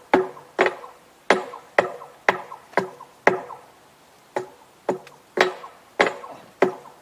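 Hammer blows on a freshly thermite-welded steel rail joint, about two a second, each with a short metallic ring. There are about a dozen blows, with a brief pause a little past the middle.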